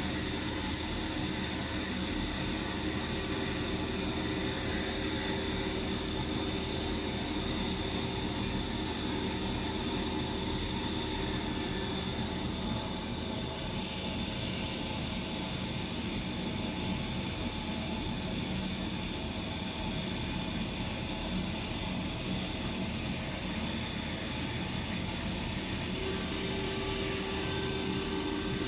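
Hurco 5-axis CNC machining centre running a program, a steady machine whine and hum with a thin high tone. The high tone shifts a little about halfway through, and a lower tone joins near the end.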